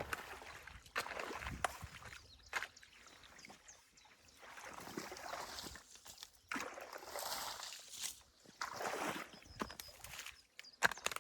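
Shallow stream water sloshing and splashing in irregular surges as a beaver dam's mud and sticks are worked loose, with scattered sharp clicks in between.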